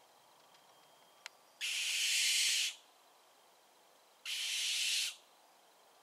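Young barn owl giving two harsh, hissing screeches about two and a half seconds apart, each lasting about a second.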